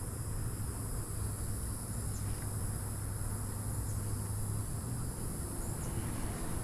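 Steady high-pitched drone of insects, likely crickets, with a low steady hum underneath and a few faint chirps.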